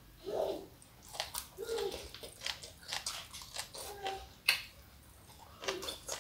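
Close-miked wet chewing, lip smacks and mouth clicks from a mouthful of sambal-coated spring onion greens, with a few short murmurs of the voice in between.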